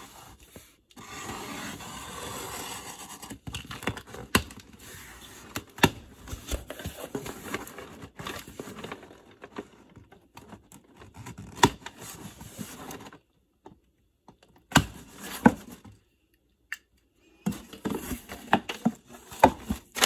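Packing tape on a corrugated cardboard box being slit and torn open, a steady tearing rasp about a second in, followed by scattered clicks and scrapes as the cardboard flaps are pulled back. Near the end, crumpled kraft packing paper rustles and crinkles as it is pushed aside.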